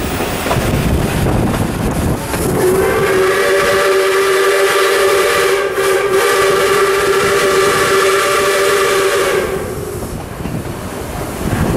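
Steam locomotive 621's whistle blowing one long, steady blast of about seven seconds, starting a couple of seconds in, a warning as the train nears a road crossing. Under it runs the rumble and clatter of the moving train, which carries on after the whistle stops.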